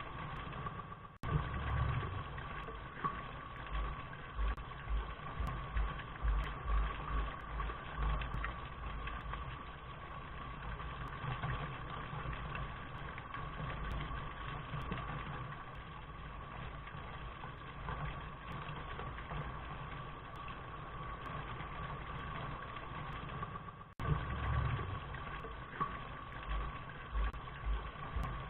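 Rain recording playing as steady white noise: an even hiss with irregular low drips and thuds and a faint steady tone. It cuts out for an instant about a second in and again near the end, where the recording loops back to its start.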